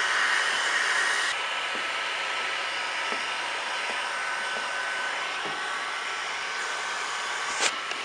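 Handheld heat gun running steadily, a blower hiss with a thin whine, warming the vinyl wrap film as it is squeegeed down. It drops a little in level about a second in, and a sharp click sounds near the end.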